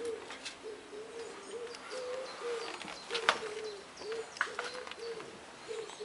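A pigeon cooing over and over in a run of short low notes, about two or three a second. A few sharp clicks come through it, the loudest about halfway.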